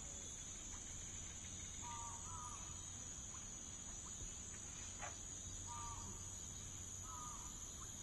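Faint steady high-pitched hiss, with a few short soft chirps at intervals and a light paper click about five seconds in as a page of a hardback picture book is turned.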